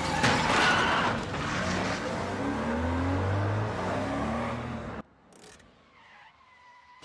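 A car engine revving hard with tyres skidding and squealing as the car is driven off fast; the engine's pitch climbs. The sound cuts off abruptly about five seconds in, leaving only faint background.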